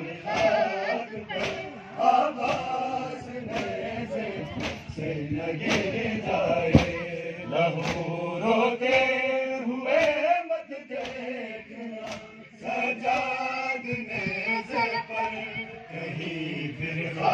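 Large crowd of men chanting a noha together, with sharp matam strikes, hands beating on chests, about every three-quarters of a second.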